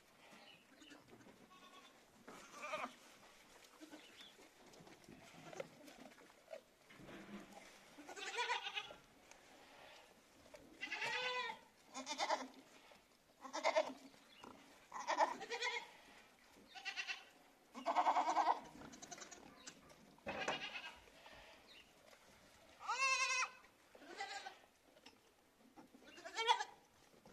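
Goats bleating again and again, about a dozen separate calls each lasting half a second to a second, some with a quavering pitch.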